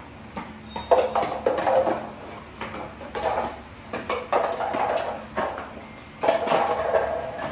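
A Chow Chow puppy playing with a plastic toy on a tile floor: sharp knocks and scrapes in several short spells.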